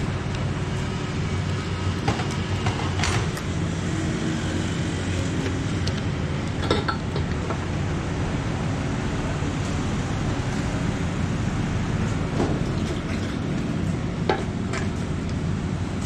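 Steady low hum of idling engines, with a few sharp metallic clicks and clinks.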